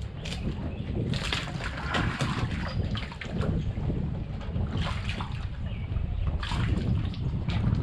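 Wind buffeting the microphone, with several bursts of water splashing and sloshing beside a kayak.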